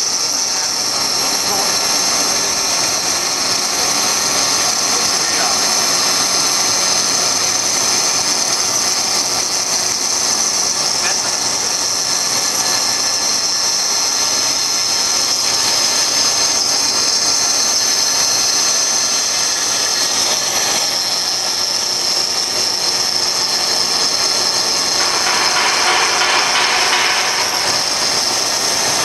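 CNC stone router's spindle running with a steady high whine as its water-cooled tool grinds through a stone slab. The cutting noise grows harsher for a couple of seconds near the end.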